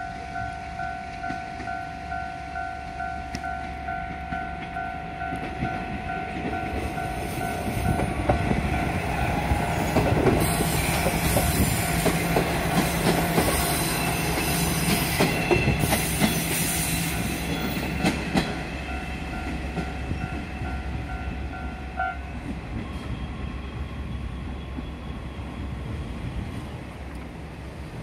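Level-crossing alarm ringing a steady repeating two-tone ding while a JR Kyushu KiHa 47 two-car diesel railcar passes over the crossing. The railcar's diesel engine and wheels clacking over rail joints grow loudest in the middle. The crossing bell stops about three-quarters of the way through.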